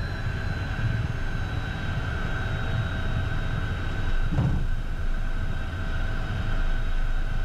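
Cockpit noise of a Beechcraft Premier I business jet taxiing at walking pace, its twin turbofan engines near idle: a steady low rumble under a thin, steady high whine. A brief low swell comes about four and a half seconds in.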